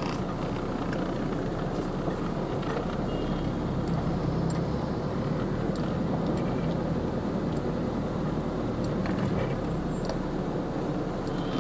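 Steady engine and road noise heard inside a car's cabin as it drives slowly, with a few faint ticks.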